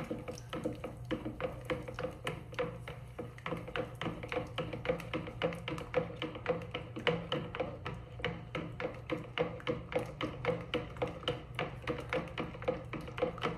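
A stirring stick clicking and tapping against the sides of a plastic measuring jug while stirring a liquid soap mixture, at about three to four clicks a second.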